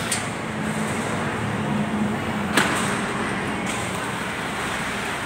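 Steady background noise of a busy food stall and market hall, with a single sharp knock about two and a half seconds in.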